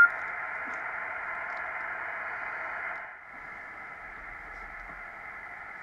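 Receiver hiss of a Kenwood TS-700SP 2-metre all-mode transceiver from its speaker, steady and narrow-band with no signal tuned in, dropping a little in level about three seconds in. The radio has lost its receive sensitivity, though it still hisses as if it were receiving.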